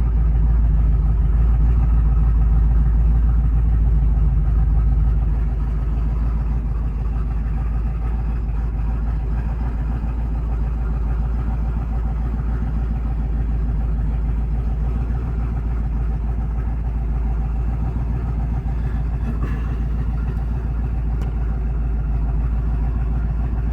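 1994 Ford Bronco's small-block Ford V8 idling steadily, a little louder for the first five seconds and then settling.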